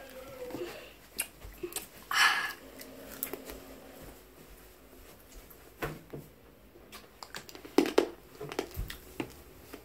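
A person moving about a small room: scattered light knocks and taps, with a short rustle about two seconds in.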